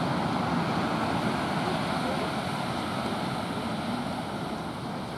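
Ocean surf breaking and washing up the beach: a steady rushing noise that eases slightly toward the end.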